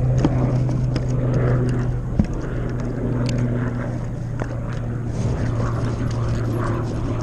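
A steady low engine drone, with light clicks and a sharp knock about two seconds in from handling the fishing reel and line.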